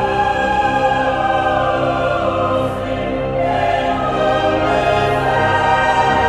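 Background music: choir and orchestra holding long, sustained chords, with the chord changing about halfway through.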